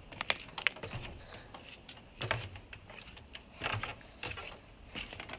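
Footsteps on dry, debris-strewn dirt: scattered light clicks and crunches at an irregular pace, with a couple of soft low thuds.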